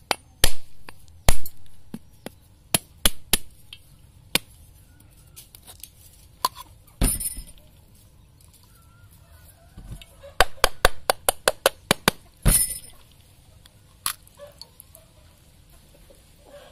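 Machete blade striking the hard shell of a partly husked kopyor coconut to crack it open: sharp single knocks at first, then a quick run of about eight taps in a couple of seconds.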